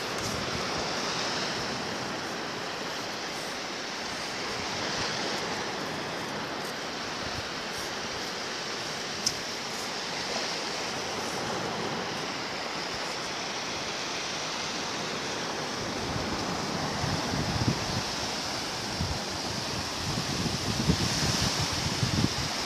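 Steady wash of small waves breaking on a sandy shore, swelling and easing slowly. One sharp click about nine seconds in, and wind buffeting the microphone in low gusts over the last several seconds.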